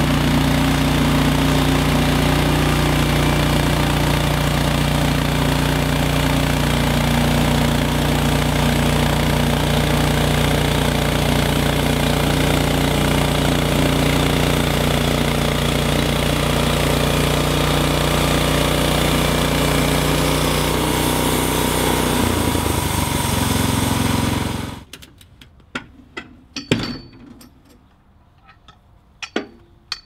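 Timbery M120 portable bandsaw mill running steadily, its engine holding a constant note as the blade cuts through a pine log. Near the end the engine note shifts, then the sound stops abruptly, leaving a few sharp knocks and clicks.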